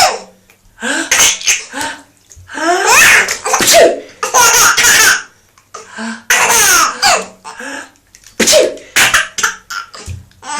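A man sneezing several times, with a baby giggling and laughing in between.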